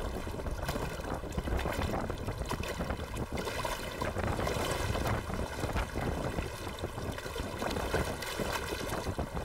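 Wind buffeting the microphone, a steady low rumble, with choppy water lapping against the floating dock and the boat's hull.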